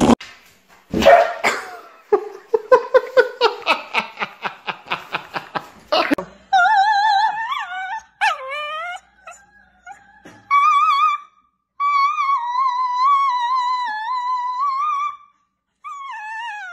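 A pug giving a quick run of short yips and grunts, about three a second. Then a small long-haired dog howls in long wavering calls that wobble up and down in pitch as if singing, breaking off and starting again several times.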